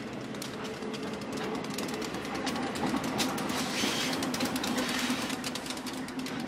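Union Pacific diesel locomotive and freight cars rolling past close by: a steady engine hum under rapid clicking of wheels over the rails. It is loudest about three to five seconds in, as the locomotive passes.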